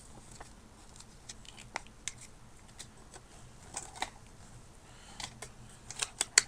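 Handling of a product box and its paper and plastic contents: scattered light clicks and short rustles, with a quick cluster of sharper clicks near the end.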